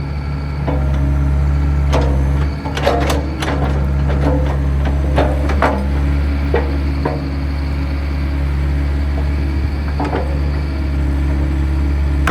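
Bobcat E80 excavator's diesel engine running steadily under the working hydraulics, with irregular knocks and clunks from the machine's bucket and arm as it is operated.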